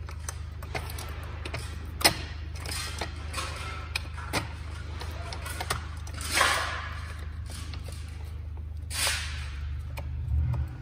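Steel battery module hanger being fitted by hand onto EV battery modules: scattered metal clicks and knocks, the sharpest about two seconds in, and two rustling, scraping swells later on as the frame and strap are shifted. A steady low hum runs underneath.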